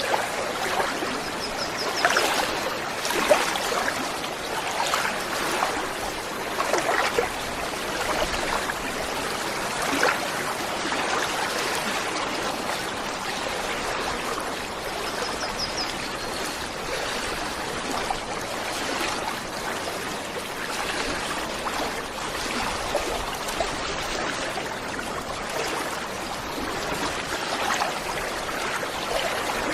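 Small waterfall running steadily, its water splashing and gurgling with irregular louder splashes.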